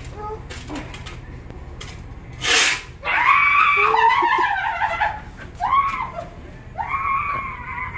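A woman screaming in fright: a short rushing burst about two and a half seconds in, then a long high scream, followed by two shorter shrieks.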